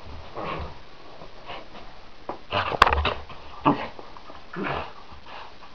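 Jack Russell terrier puppy whining in short bursts as it tugs and shakes a shaggy rug, with a sharp click about three seconds in.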